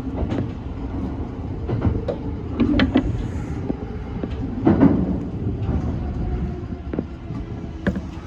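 E235 series electric train rumbling, with scattered sharp knocks and clanks; the loudest knock comes a little under five seconds in.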